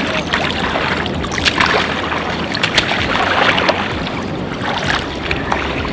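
Sea water splashing and sloshing: a steady rushing with many small splashes.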